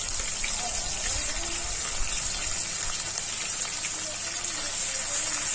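Onion paste just dropped into hot oil in a kadai, frying with a steady, dense crackling sizzle like rain.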